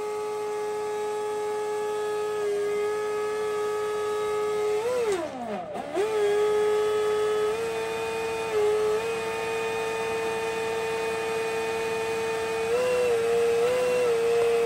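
DeWalt FLEXVOLT cordless leaf blower running with a steady whine, blowing across berries poured down a screen to clean them. About five seconds in its pitch sags sharply and climbs back as the motor slows and spins up again, and it steps up a little near the end.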